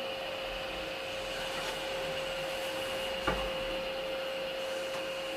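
Orona machine-room-less traction elevator travelling up, heard from inside the cab: a steady hum with a constant whine, and a single click about three seconds in.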